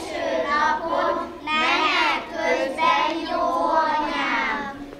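A group of young kindergarten children singing a song together, phrase after phrase with held notes.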